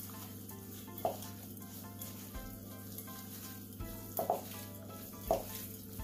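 Raw chicken pieces being squished and tossed by a gloved hand with seasoning and olive oil in a glass bowl: a wet, squelching mixing noise, with a few short louder sounds about one, four and five seconds in.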